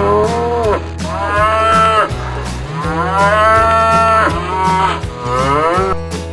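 A cow mooing: four drawn-out calls, each rising then falling in pitch, the third the longest, over soft background guitar music.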